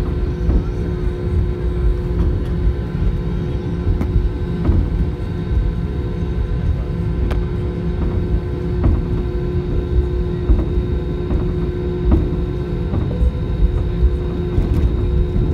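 Airbus A320 heard from inside the cabin while taxiing: a steady low rumble of the engines with a constant hum, and scattered light clicks and knocks as the airliner rolls along.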